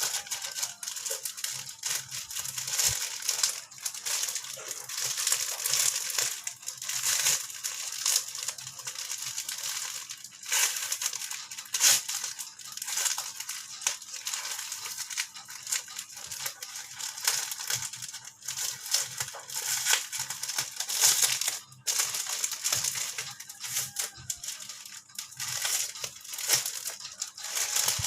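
Packaging being handled: a continuous, irregular crinkling and rustling with many small crackles, broken by short pauses.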